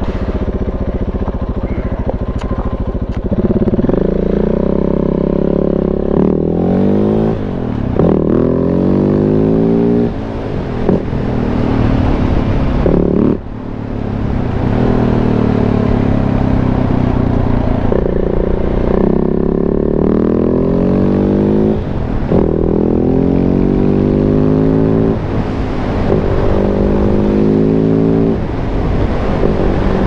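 Big-bore KTM 690 single-cylinder engine under way, pulling hard. Its revs climb for a few seconds at a time and drop back about seven times: accelerating and shifting or rolling off between pulls.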